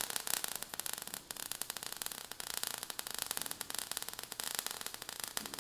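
Steady crackling static: a dense run of fine clicks over an even hiss.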